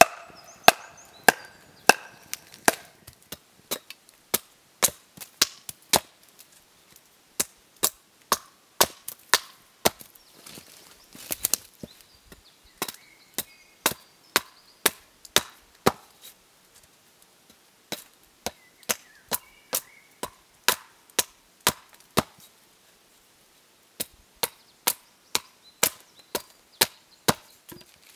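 Hatchet chopping down a block of wood stood upright on a chopping stump, shaping a wooden mallet by splitting off long slivers. Sharp, separate strikes come about two a second in several runs, with short pauses between them.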